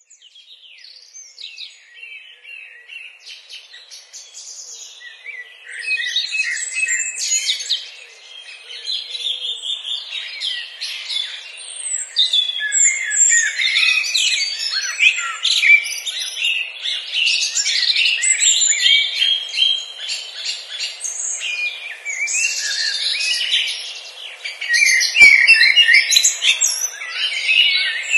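Several songbirds chirping and singing: a chorus of quick, high chirps and trills that starts faint and grows fuller and louder about six seconds in.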